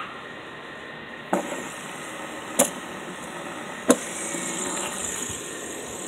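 Phone handling noise: three short, sharp knocks about a second and a quarter apart over a steady hiss.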